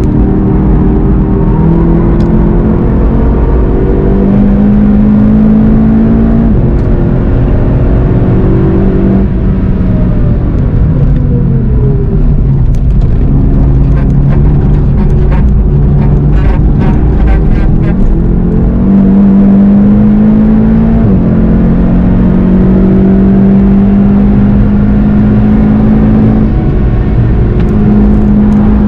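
Car engine and road noise heard from inside the cabin at track speed, the engine note stepping up and down with gear changes and rising under acceleration. In the middle comes a run of quick knocks as the tyres cross the concrete slabs of the banked Karussell.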